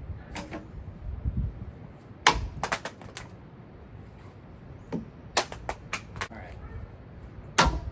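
Sharp, hard clacks and knocks in quick runs: old cell phones struck by the spinning blades of a ceiling fan and clattering off. The loudest run comes about two seconds in, another near the middle, and one loud knock near the end.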